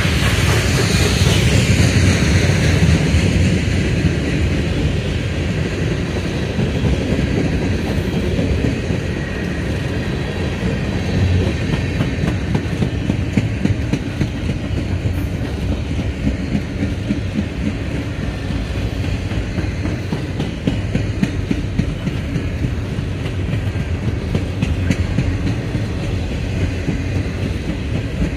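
Norfolk Southern freight train cars rolling past: a steady rumble of steel wheels on the rails with clickety-clack over the rail joints, a little louder in the first few seconds.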